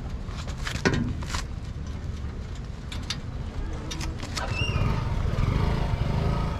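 A vehicle engine running, getting louder about two-thirds of the way through, with several sharp knocks in the first half.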